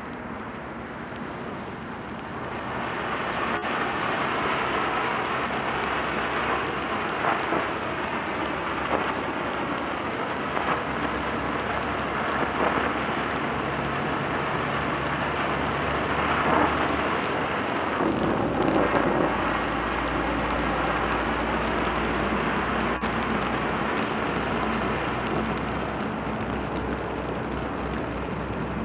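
Black Cat Tiger Fountain ground firework burning: a steady rushing hiss with scattered crackles as it sprays sparks, building to full strength about two seconds in.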